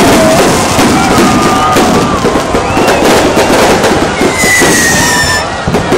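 Aerial fireworks going off in a dense, continuous crackling and popping, with a thin whistling tone sliding downward about four seconds in.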